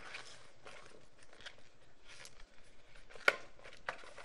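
Latex 260 twisting balloon being handled: faint rubbing and rustling with small scattered clicks, a sharp snap a little over three seconds in and a smaller one just after.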